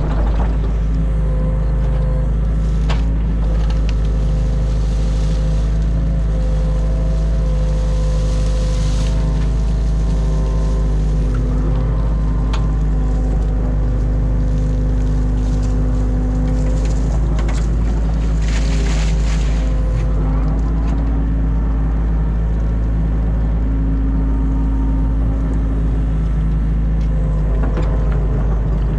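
New Holland Kobelco E50.2 mini excavator working from the cab: the diesel engine running steadily under a hydraulic whine that shifts in pitch as the boom and ditch-cleaning bucket move, with a few sharp knocks and two short hissing swells.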